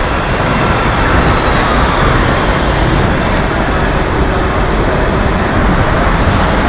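Loud, steady noise of a boat factory floor, an even rush of machinery and moving air, with a few faint high ticks.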